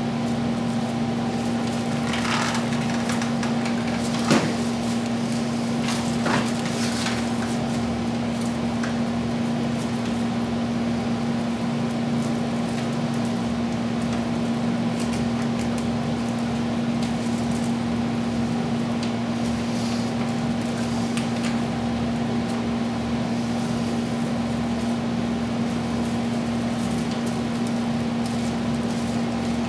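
A steady, even-pitched mechanical hum, with a few brief rustles and a sharp click of broomcorn stalks being handled and tied in the first seven seconds. The click about four seconds in is the loudest sound.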